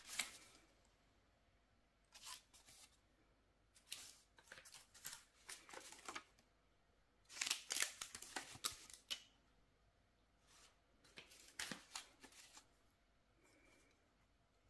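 Rustling, crinkling and light clicking of clear-stamp packaging, a plastic sleeve on a card backing, as it is handled and the sheet of clear stamps is slid out. The noise comes in four short spells with quiet between.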